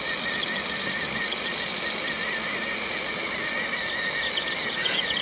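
Electric drive motors of two RC rock crawlers whining under load as they pull against each other. The high, wavering whine warbles and gets stronger near the end.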